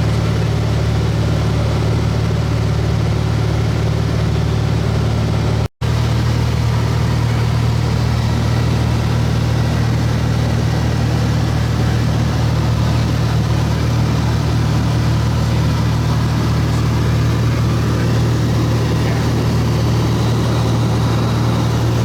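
Steady drone of a light aircraft's piston engine and propeller heard inside the cabin in level flight, with a deep hum and no change in pitch. The sound cuts out for an instant about six seconds in.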